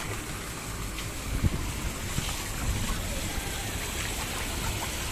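Water churning and splashing in a plastic tub crowded with live carp.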